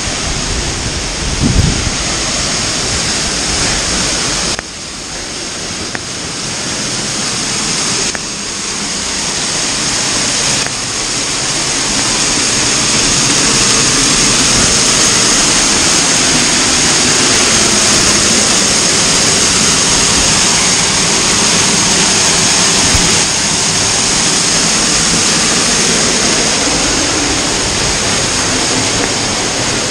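Waterfall's steady rush of water falling onto rock and pool, heard up close and then from right behind the falling sheet, growing louder from about ten seconds in. A brief low thump on the microphone about a second and a half in.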